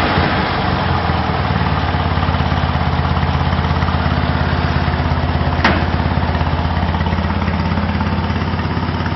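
Fiat 126p's air-cooled two-cylinder engine idling with an even, pulsing beat, settling down to idle within the first second. A single sharp click about five and a half seconds in.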